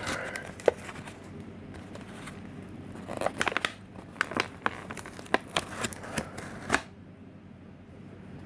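Thin Lexan plastic body shell of a 1/24 scale slot car crackling and clicking as it is handled, with a brief crinkle at the start and a run of sharp crackles from about three to seven seconds in.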